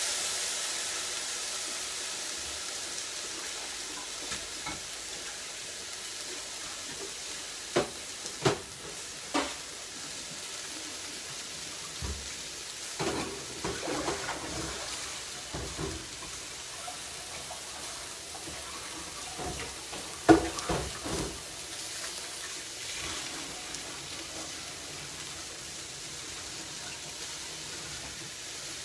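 Cherry tomatoes sizzling in hot olive oil in a frying pan with aubergines and spring onions. The sizzle is loudest just after they go in and settles within a few seconds to a steady frying hiss. A few sharp knocks and clatters come around a third of the way through, another cluster follows, and the loudest single knock comes about two-thirds in.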